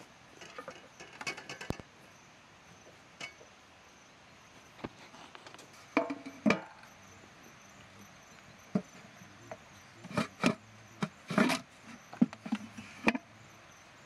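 Metal cookware clinking and knocking: a large pot, its aluminium lid and a metal serving tray handled on a table, with a loud pair of knocks about six seconds in and a run of clanks near the end as the pot is turned upside down onto the tray.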